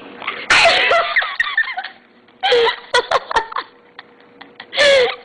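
A little girl sneezes sharply about half a second in, then laughter follows in short choppy bursts.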